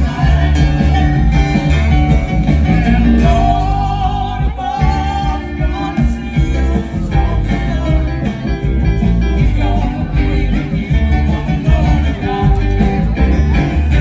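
A live band playing amplified music through the stage's PA speakers, with a strong steady bass and melodic lines over it.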